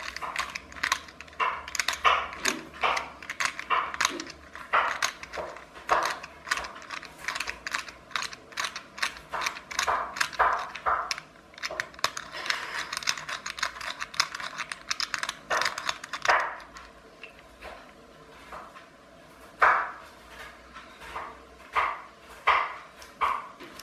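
Small clear plastic piston block from a clockwork toy car being worked by hand: rapid, irregular plastic clicks and rattles. They thin out for a moment about three-quarters of the way through, then pick up again.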